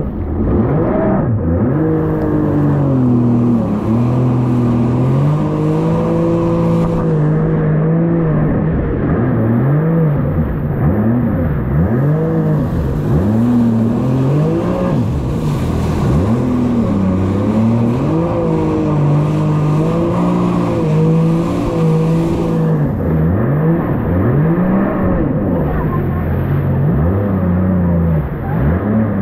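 Jet ski engine running under way, its revs rising and falling over and over as the throttle is worked in the chop. A hiss of rushing wind and water comes and goes over it.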